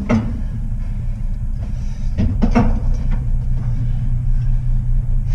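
Steady low electrical hum from a Liebherr tower crane, heard in its cab, with a brief sound about two and a half seconds in. This is the humming the mechanics were called to fix, which they put down to a contactor whose shading ring has broken so that it vibrates at mains frequency.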